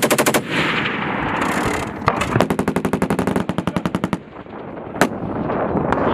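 Machine guns firing in automatic bursts. A short burst comes at the start, then a longer burst of about ten rounds a second lasting about two seconds, then a single sharp shot about five seconds in.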